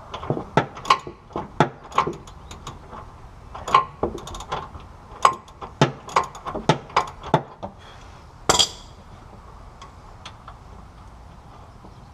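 A ratchet wrench clicking in short strokes as it turns a 21 mm rear shock-absorber mounting bolt, with one louder metallic clank about eight and a half seconds in. After that the clicking stops.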